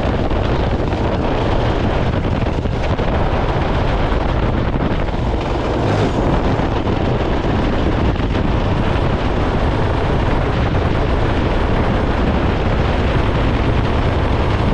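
Go-kart engine running hard as the kart accelerates out of a corner and down a straight, mixed with wind buffeting the onboard camera's microphone; a loud, steady, dense noise.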